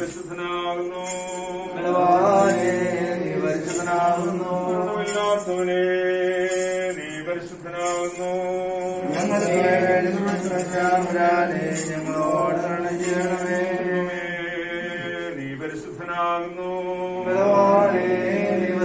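Voices singing a slow Malayalam Christian hymn in a chant-like melody, with long held notes.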